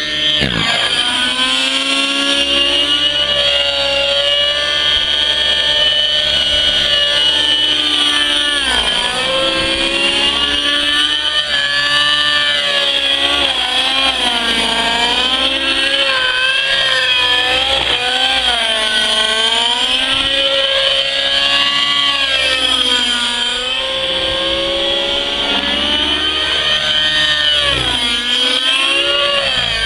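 Nitro-powered RC helicopter running at high revs through aerobatic manoeuvres, with engine and rotors together. The pitch dips and recovers several times as the load changes, over a steady high whine.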